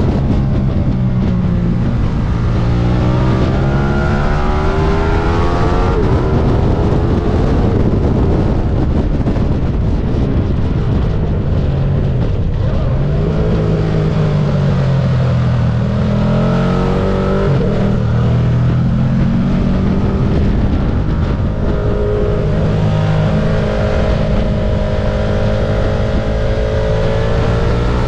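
Stock Ducati sport bike's engine heard onboard at track speed under a heavy rush of wind. The engine note climbs and drops back several times as the bike accelerates, shifts and slows through the corners.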